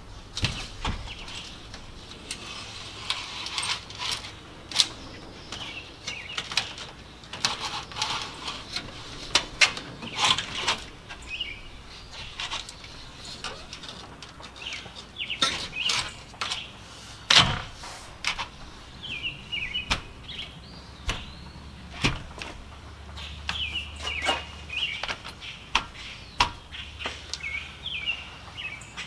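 Irregular knocks and clicks as a heavy window sash is tilted and pushed into its opening, the loudest knock about two-thirds of the way through. Birds chirp in short bursts throughout, most often in the later part.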